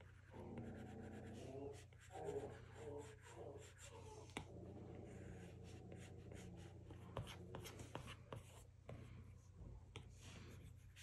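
Faint, irregular taps and light scratching of an Apple Pencil's plastic tip on an iPad Pro's glass screen during drawing strokes.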